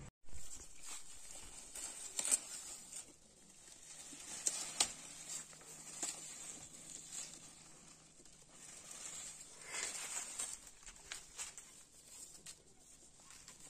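Boer goats browsing a leafy branch: irregular rustling, tearing and crunching of leaves as they strip and chew them, with scattered sharp crackles.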